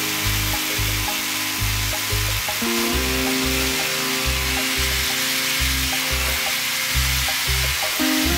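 Background music with a steady beat and chord changes, over the steady hiss of an electric hammer drill boring into ceramic wall tile.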